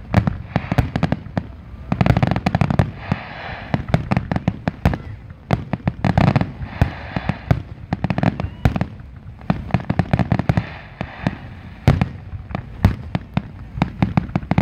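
Fireworks grand finale: aerial shells bursting in rapid succession, a dense, continuous run of sharp bangs with heavier booming clusters about every two seconds.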